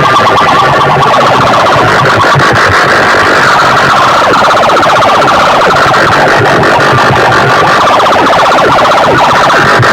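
Siren-like electronic tone played through large sound-box loudspeaker stacks at full, distorted volume, pulsing fast, with scattered low thumps underneath.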